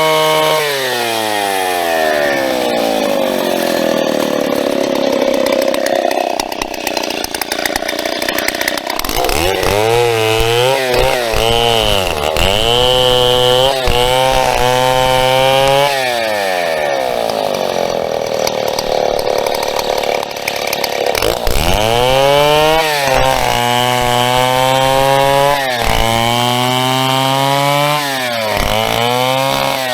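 Large two-stroke chainsaw bucking a birch stem. The engine revs up to full speed three times, holds there for a few seconds with a high chain whine, then its pitch drops away.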